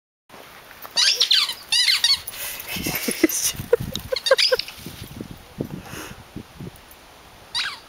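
Rubber squeaky dog toy being chewed by a dog, giving sharp, high squeaks in quick clusters about a second in and near two seconds, and again near the end.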